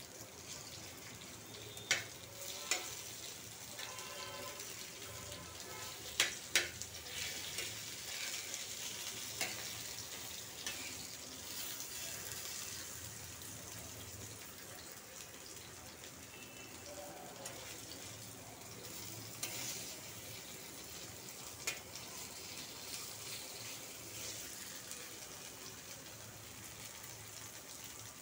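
Sliced leaf rolls with sesame seeds sizzling steadily in oil on a flat iron tawa. A metal spatula scrapes and clicks against the pan as the pieces are turned, sharpest twice near two seconds in and twice near six seconds in.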